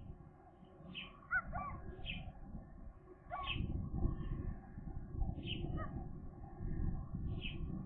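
Birds calling: short high chirps about once a second, with a few lower calls that curve up and down in pitch, over a steady low rumbling noise.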